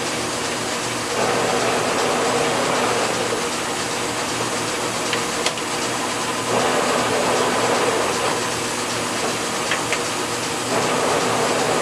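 Kearney & Trecker (K&T) milling machine running with a steady mechanical whir. Its sound changes a few times as the controls on the head are worked, with a couple of light clicks.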